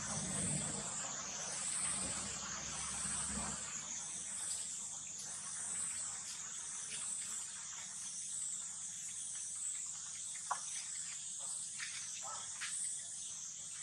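Steady high hiss of insects droning in the background, with a low hum for the first few seconds. A few faint clicks near the end come from a baby pigtail macaque mouthing the rim of a plastic basket.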